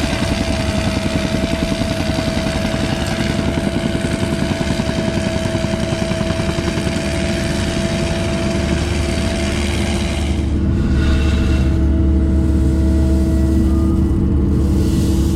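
An engine running steadily, its sound deepening and getting louder about ten seconds in.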